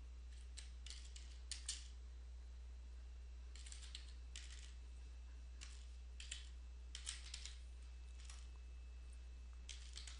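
Computer keyboard keys tapped in short, scattered runs as a terminal command is typed, faint, over a steady low hum.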